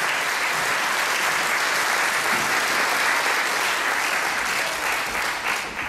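Audience applauding, dense and steady, then dying away near the end.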